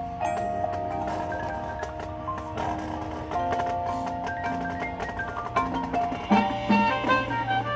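Marching band music led by the front ensemble's mallet percussion: marimba and bell-like struck notes over sustained chords. About six seconds in the music grows louder and busier as a low held note comes in.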